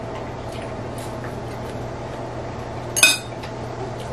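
Tableware clinking during a meal: chopsticks and a spoon tapping ceramic bowls and plates in light, scattered clicks, with one sharper, louder clink about three seconds in. A steady low hum runs underneath.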